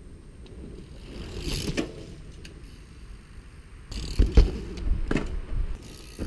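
Cannondale Habit SE full-suspension mountain bike riding right past the microphone: knobby tyres rolling over the dirt trail, loudest about four seconds in with a few heavy thumps and sharp clicks as the front wheel passes just over the camera.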